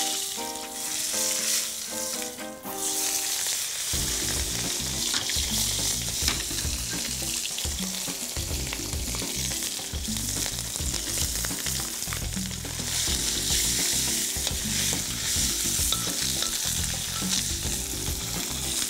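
A whole yellow croaker sizzling steadily as it pan-fries in a little hot oil in a wok.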